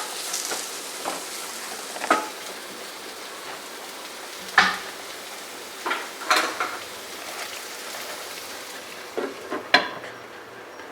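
Onions frying in oil in a pan with a steady sizzle, while a spatula now and then knocks and scrapes against the pan as they are stirred.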